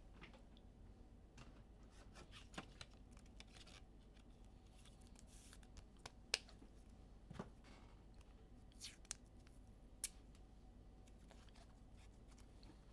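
Near silence: room tone with a few faint, scattered clicks and rustles of trading cards and packaging being handled.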